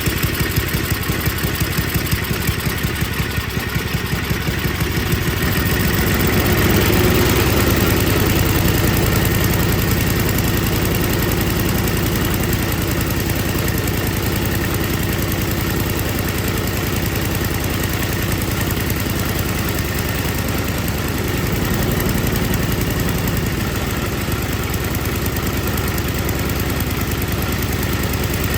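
Tecumseh 5 hp single-cylinder engine on an MTD Yard Machines snowblower running, now starting and running after its carburetor was cleaned. It picks up speed and gets louder about six seconds in, then runs steadily.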